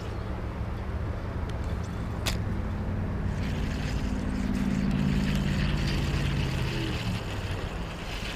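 Road traffic: a vehicle's engine hum swells as it passes, loudest around the middle, then fades. A single sharp click comes about two seconds in.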